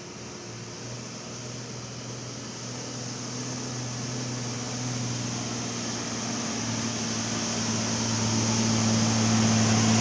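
Heavy diesel engine running with a steady low hum, growing steadily louder.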